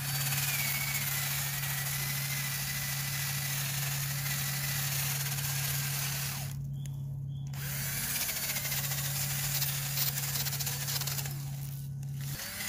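Milwaukee 12-volt cordless drill spinning a wire wheel brush against tree bark: a steady motor hum under a dense scratchy hiss as the bristles scour off spray paint. The scratching drops out twice for about a second, about six and eleven seconds in, while the motor keeps running, and the drill stops at the very end.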